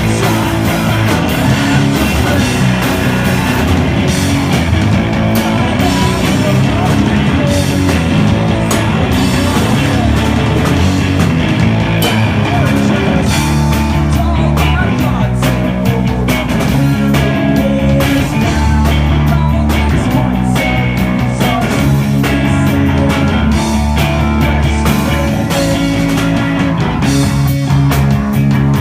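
Rock band playing live, loud and dense, with electric guitar prominent.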